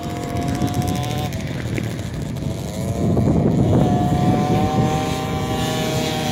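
Motocross bike engines running at high, steady revs. The pitch drops as the throttle eases about a second in, there is a louder burst of noise around three seconds in, and the engine climbs back to a high held note from about four seconds in.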